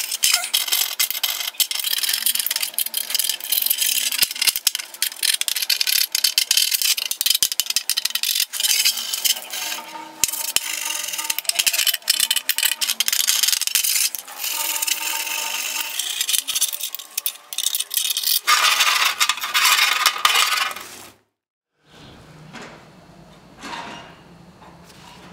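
Steel tow bar being filed by hand: quick, repeated rasping strokes of a metal file. The filing stops suddenly near the end, leaving only a faint low hum.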